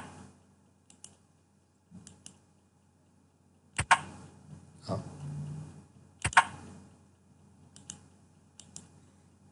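Computer mouse clicks: a handful of sharp clicks, the loudest about four and six seconds in, with fainter clicks between them. There is a brief low hum near the middle.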